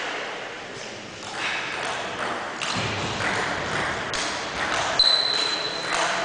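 Table tennis rally: the celluloid ball is struck by the paddles and bounces on the table, giving sharp, irregular clicks that ring in a hall. A thin high-pitched squeak sounds about five seconds in.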